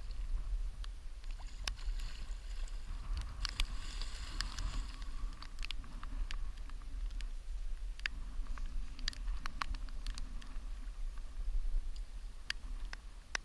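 A hooked carp splashing at the surface as it is played in and drawn into a landing net, with a longer spell of splashing about four to five seconds in and scattered sharp knocks and clicks of handling. Wind buffets the microphone throughout with a low rumble.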